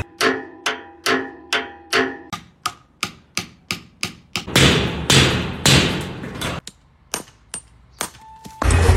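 A run of sharp, ringing strikes, as of something hard being hit repeatedly, about two a second. Then two heavier crashes with long decays, a few scattered clicks and a short beep. Loud bass-heavy sound cuts back in near the end.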